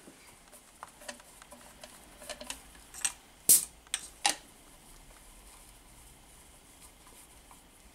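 Light handling noises of a compression tester: a handful of sharp clicks and taps as its gauge and hose are moved about among the spark plug wells of an engine's plastic valve cover, quieter over the second half.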